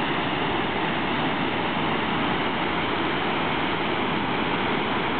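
Waterfall of the Pliva River at Jajce, a steady, even rush of falling water.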